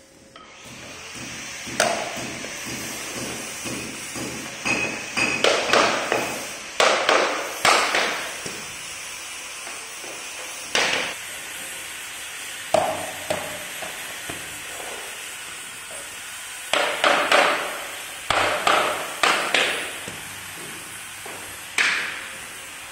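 Hammer knocking on a tapping block against floor planks to close up their joints, in short runs of quick sharp knocks with pauses between.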